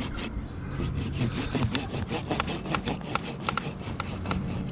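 Hand saw cutting through wood in quick, regular back-and-forth strokes, several a second, with an engine running steadily in the background.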